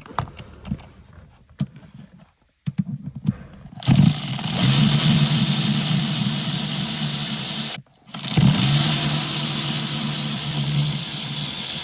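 Cordless drill-driver with a 5 mm Allen bit spinning out two bolts: two steady runs of motor whine of about four seconds each, with a short break between them. A few light clicks come first, as the bit is set in place.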